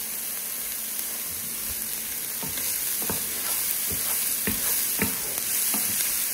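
Chopped onions and garlic sizzling in hot olive oil in a frying pan, with a steady high hiss. From about two and a half seconds in, a wooden spoon scrapes and taps against the pan about twice a second as they are stirred.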